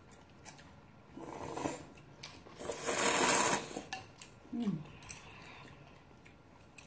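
Ramen noodles slurped: a short slurp about a second in, then a longer, louder slurp around three seconds in, with faint chopstick and chewing clicks. A brief falling 'mm' from a voice follows near five seconds.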